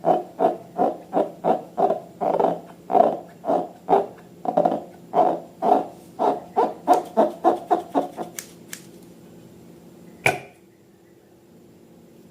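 Slime being squeezed and pressed by hand: a steady run of low squelching pops, about two to three a second, that stops about eight seconds in, followed by a single sharp click about ten seconds in.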